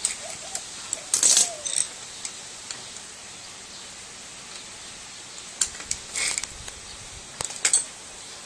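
Metallic clinks and clatter from hand tools working parts loose from an old TV's circuit board. The noise comes in a few short bursts: about a second in, twice around six seconds, and twice near the end.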